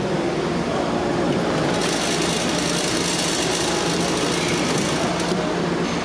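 A steady mechanical hum, with a hiss that starts about two seconds in and stops about five seconds in.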